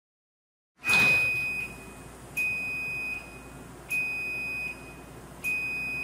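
LiftMaster belt-drive garage door opener beeping: four high-pitched beeps starting about a second in, each under a second long and about one and a half seconds apart, the first the loudest. This is the opener's signal, with slow light flashes, that the door has reversed on contact with an obstruction during the safety reversal test.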